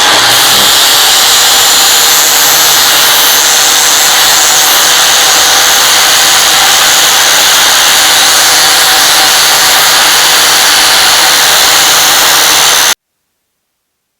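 Electric grinder running steadily as it sharpens the edge of a metal part, a loud, even whir. It cuts off suddenly near the end.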